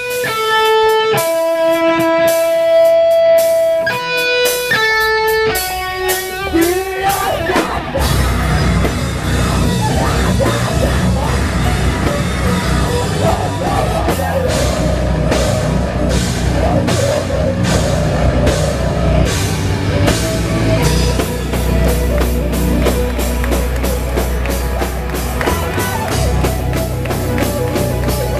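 A heavy metal band playing live. Electric guitar holds sustained notes for the first several seconds, then the full band with drums comes in about eight seconds in and plays on loudly.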